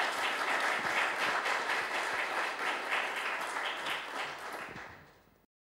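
Audience applauding: many hands clapping, fading over the last second and then cutting off abruptly.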